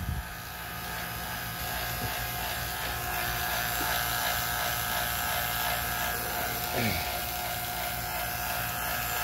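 HVAC refrigerant vacuum pump's electric motor running with a steady buzzing hum while it holds the RV air conditioner's refrigerant system in vacuum, before the refrigerant charge.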